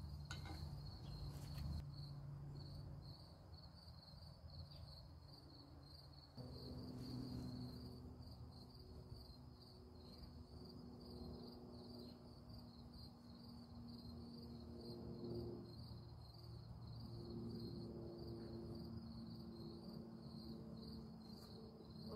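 An insect chirping steadily in a fast, even pulsing trill. About six seconds in, a faint low steady hum joins it.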